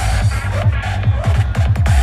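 Electronic dance music played loud over a venue sound system, heard from within the crowd: a driving kick drum whose hits drop in pitch, bunching into a quicker roll in the second half while the top end of the mix thins out.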